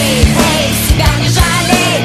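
Hard rock music with a steady drum beat and a wavering lead melody over it.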